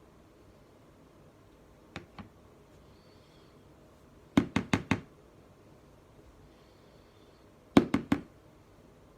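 Sharp knocks on a hard surface in quick runs: two light clicks, then four knocks in about half a second, then three more near the end.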